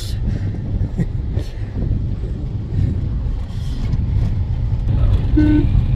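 Car driving along a rough road: steady low rumble of road and engine noise, with a short beep about five seconds in.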